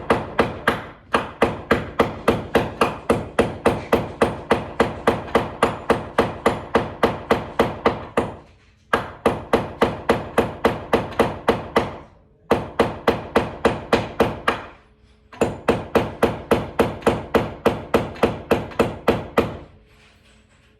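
Hammer rapidly striking a nail into the wall, about three or four blows a second, in several runs with short pauses between. The nail is being knocked in to make a starter hole for a mount screw.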